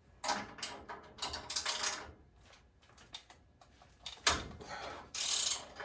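Metal clanking and scraping from tools and parts being handled, with a sharp knock about four seconds in and a short hissing scrape near the end.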